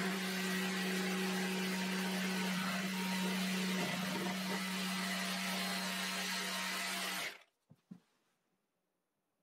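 Festool Carvex jigsaw, orbital action off, running steadily as its blade cuts through a plywood panel, then switched off and stopping abruptly about seven seconds in, followed by a couple of faint knocks. This is the cut in which the blade overheats, bends and wanders off the line.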